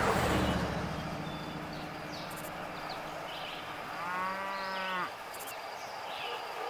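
A cow moos once, a single call of about a second, around four seconds in.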